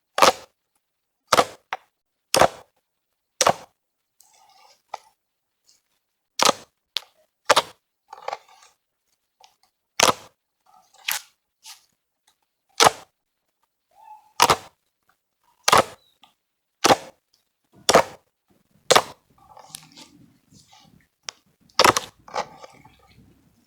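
Fluffy slime being worked by hand, giving loud, sharp pops as trapped air bursts, about one a second at uneven spacing, with faint squishing between them.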